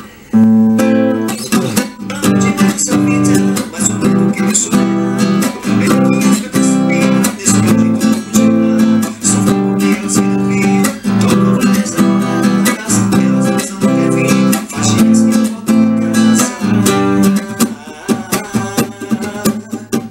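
Classical-style acoustic guitar strumming chords in a steady rhythm, with sharp, clipped strokes between the ringing chords.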